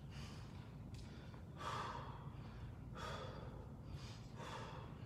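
A man's hard breathing under exertion: four forceful breaths, evenly spaced about a second and a half apart, over a low steady room hum.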